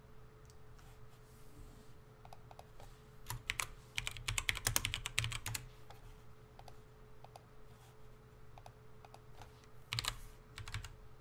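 Typing on a computer keyboard: a quick run of keystrokes about three seconds in, with scattered single key clicks before and after and another short burst near the end. A faint steady hum sits underneath.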